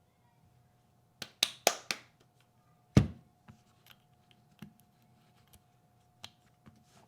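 Sharp clicks and taps of small hard parts being handled, four in quick succession about a second in, then one heavier knock with a dull thud about three seconds in, followed by scattered light ticks.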